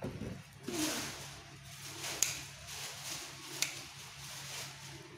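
Freshly cut Thai basil stems rustling as they are handled, and scissors snipping through the stems twice, about a second and a half apart.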